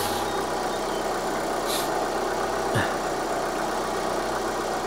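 Vauxhall Astra G 1.8 16-valve Ecotec four-cylinder petrol engine idling steadily, ticking over pretty smooth just after a new timing belt and water pump were fitted.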